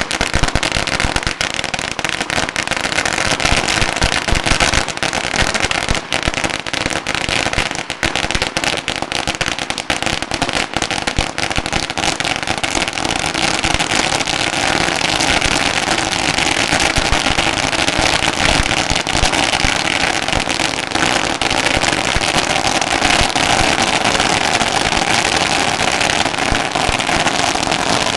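A roll of about sixteen thousand firecrackers going off in a continuous rapid string of bangs. After about fourteen seconds the bangs merge into a denser, steadier and slightly louder rattle.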